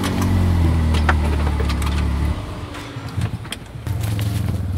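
Side-by-side UTV engine running at low trail speed. It drops off about two seconds in and picks up again near four seconds, with scattered knocks and rattles throughout.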